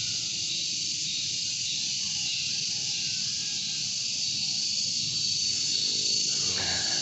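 Insects chirring in a steady, shrill chorus, a high hiss with a thin whine in it that grows stronger near the end.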